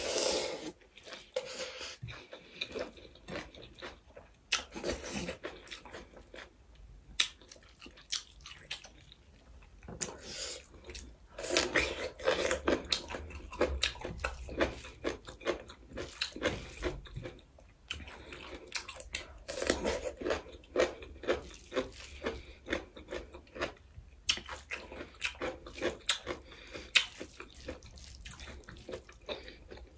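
Close-miked mouth sounds of a person eating: chewing and crunching mouthfuls of rice and chicken curry, with many small wet clicks. There are louder stretches of chewing now and then.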